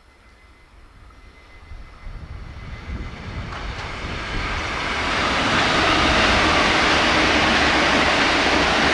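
Train approaching at high speed: its rumble and wheel-on-rail noise grows steadily louder from about two seconds in and holds at its loudest over the last few seconds as it passes close by.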